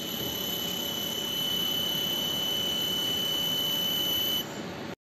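Robot fiber laser welder at work on a steel part: a steady high-pitched whine over a hiss, which cuts off about four and a half seconds in.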